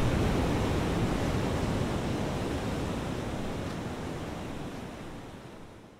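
A steady rushing noise with no tune or beat, sea-like in character, fading gradually until it is almost gone at the very end.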